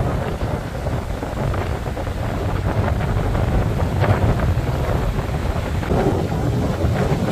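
Strong wind buffeting the camera's microphone, a heavy, uneven low rumble, with the wash of ocean surf mixed in.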